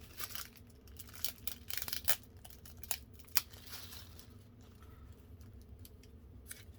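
Paper and packaging rustling and crinkling as a note is taken out and unfolded, with scattered short crackles for about the first three and a half seconds, then only faint ticks.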